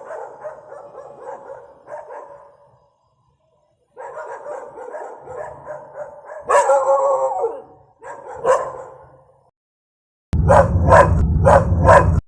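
Dogs barking in several separate recordings played in turn: a stretch of continuous barking, a short pause, more barking with a few louder single barks, then, near the end, a different recording of about five quick, evenly spaced barks over a loud low rumble.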